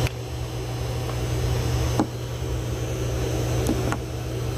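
Steady low mechanical hum in the background, with a few light clicks of metal impact sockets being handled in a plastic tray: one about two seconds in and two near the end.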